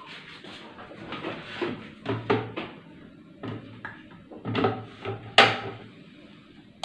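Plastic blender jug and its snap-on lid knocking and clattering as the jug is handled and set onto a Panasonic blender base: a string of separate knocks, the loudest about five seconds in.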